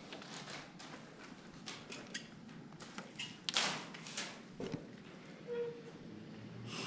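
Footsteps and light knocks and scuffs on a debris-strewn floor as someone moves through a heavy wooden doorway, with a short squeak a little past the middle.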